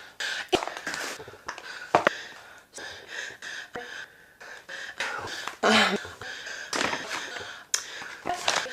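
A woman breathing heavily close to the microphone: repeated gasping breaths in and out with short mouth clicks between them, and the loudest breath just before six seconds in. She sounds out of breath just from talking while sitting down.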